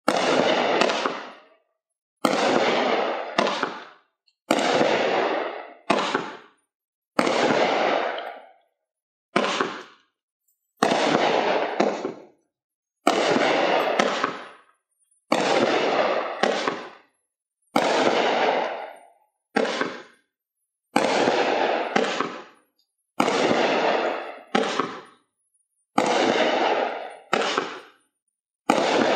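Hot Fireworks Digital Nomad 15-shot consumer fireworks cake firing shot after shot, a sharp bang every one to two seconds. Each bang fades out over about a second.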